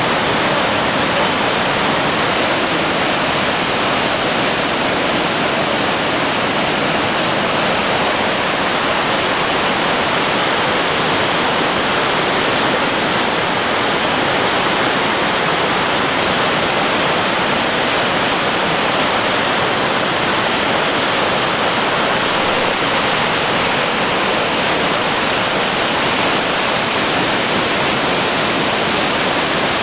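River in violent flood rushing through a rocky gorge: a loud, steady roar of churning white water.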